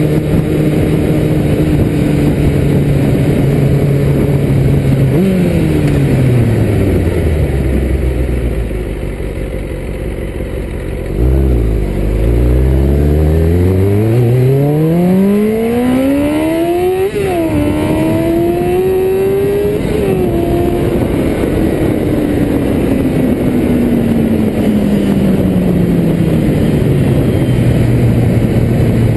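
1995 Kawasaki ZX-6R's inline-four engine, heard from the rider's seat over wind rush. It holds a steady speed, then falls in pitch as the bike slows to a low, quieter running for a few seconds. From about eleven seconds in it accelerates hard with a rising pitch, upshifts near seventeen and twenty seconds, then winds down slowly as it rolls off and settles to a steady cruise.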